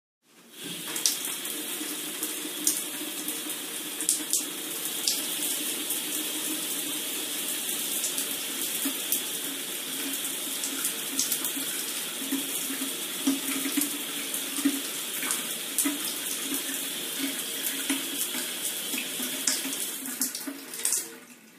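Shower running: a steady spray of water with scattered sharper splashes, starting just after the beginning and cutting off near the end.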